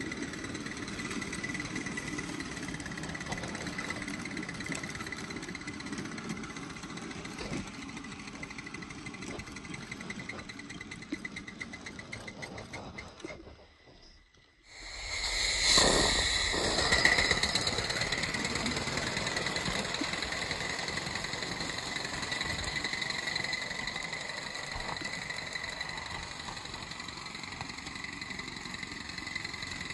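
Aster Hobby 'Lion' spirit-fired live-steam locomotive running with a train, its steam hissing and its exhaust chuffing steadily like a small engine. The sound drops out briefly about halfway through, then comes back loudest a moment later.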